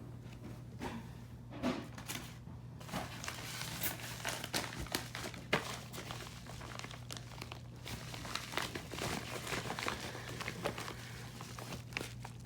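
Packaging being handled: irregular crinkling and rustling with scattered light clicks and knocks, over a steady low hum.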